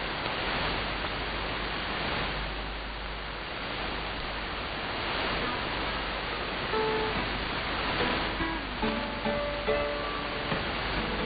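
Music on a shortwave AM broadcast heard through a web-based SDR receiver, half buried in a steady hiss of static and interference. Clear held notes come through from about six or seven seconds in.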